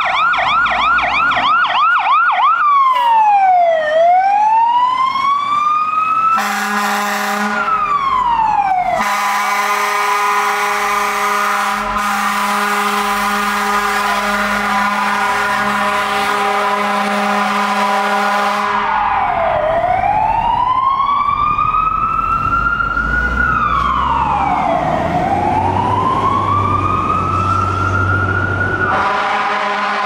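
A Federal Signal PA300 electronic siren on a 2002 E-One heavy rescue truck, switching from a fast yelp to a slow rising-and-falling wail. The truck's air horn blasts over the wail for long stretches, first from several seconds in to about two-thirds through, and again near the end. A low engine rumble sits under the later wail.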